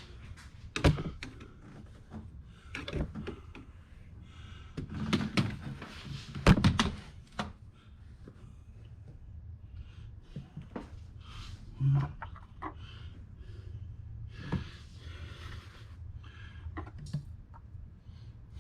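Hand rummaging among tools and parts: scattered knocks, clicks and clatters, with the loudest thuds about a second in and twice around six to seven seconds in, over a steady low hum.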